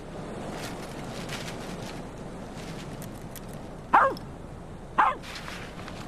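A dog barks twice, two short barks about a second apart, each dropping in pitch, near the end. Under it runs a steady rush of wind.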